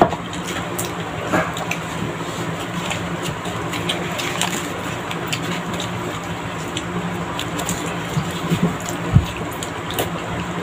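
Two children eating rice and chicken with their hands: chewing and mouth sounds with scattered short clicks, and a thump near the end. A steady low hum runs underneath.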